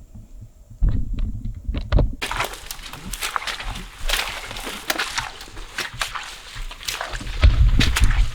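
Footsteps crunching and crackling through dry grass and brush, starting about two seconds in and going on steadily, with a few heavier thumps near the end.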